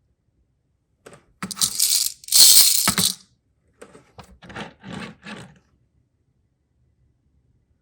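Small plastic toy pieces in a Kinder Surprise capsule rattling and clicking as they are handled. Two loud bursts come about a second in, then a few softer ones.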